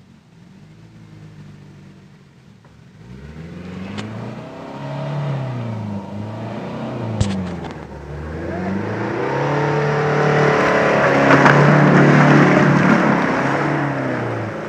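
4x4 SUV engine revving up and down again and again as it is driven under load through deep mud, growing louder as the vehicle comes close and passes. A short sharp knock about seven seconds in.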